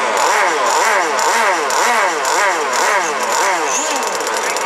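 OSSI F1 RC powerboat's engine running on its stand out of the water, the throttle blipped up and down over and over, about two to three revs a second. It settles to a steadier run near the end.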